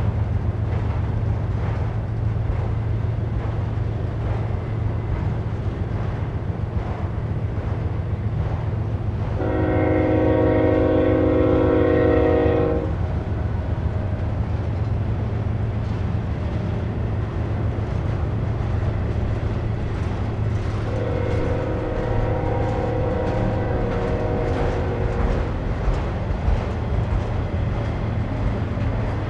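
BNSF freight train of autorack cars rolling past with a steady low rumble. A locomotive air horn sounds a multi-note chord for about three seconds roughly a third of the way in, then again more faintly for about four seconds later on.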